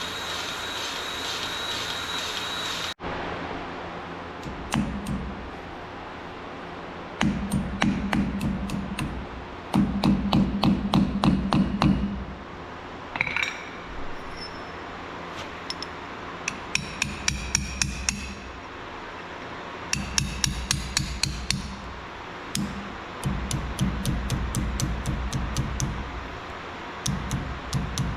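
Hammer blows on metal in short bursts of quick, evenly spaced strikes, with pauses between the bursts.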